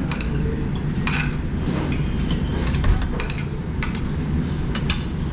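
Metal ladle and cutlery clinking against a metal hot pot and ceramic bowls and plates while soup and noodles are served: several light clinks, about a second apart, over a steady low background rumble.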